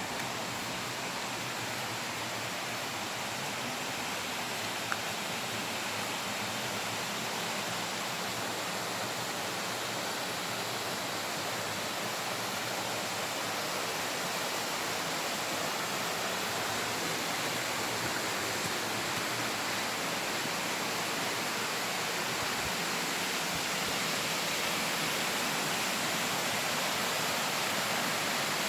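Higashi-Shiiya Falls, a waterfall, pouring steadily: a dense, even rush of falling water, a little louder near the end.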